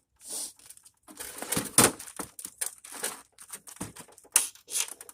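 Parts of a scrapped TV being peeled and pried apart by hand: irregular cracking, creaking and scraping, with a sharp snap about two seconds in and another near the end.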